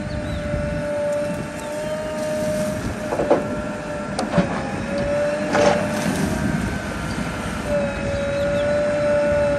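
JCB 3DX backhoe loader's diesel engine running under working load, with a steady high whine that breaks off and comes back as the arm and bucket are swung. A few sharp knocks come around the middle.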